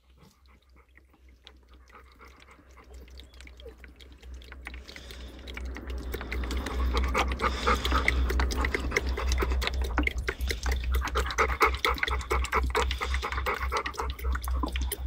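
Labrador retriever lapping water from a basin in quick wet laps, faint at first and louder from about five seconds in.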